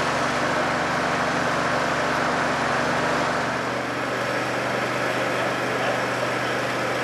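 Fire brigade turntable ladder truck's diesel engine idling steadily, driving the ladder's hydraulics while the basket is raised.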